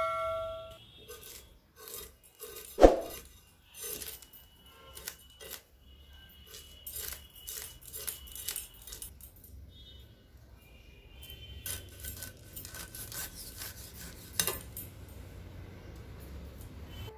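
A knife scraping and cutting hilsa fish, with repeated short scraping strokes and clicks, one heavy knock about three seconds in, and brief metallic ringing from utensils.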